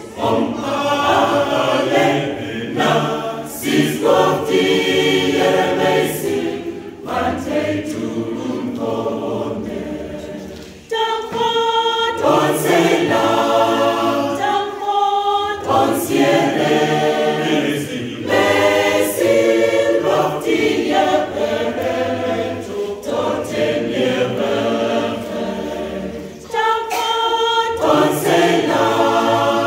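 Church choir of men and women singing together, with a short break about ten seconds in before the next phrase begins.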